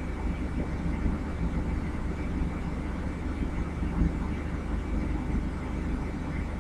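Steady low electrical hum and hiss of room background, with no distinct events.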